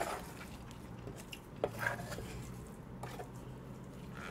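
Wooden spoon scraping and knocking against a large wooden bowl as it moves through mixed bibimbap rice, a few short scrapes with the loudest just under two seconds in.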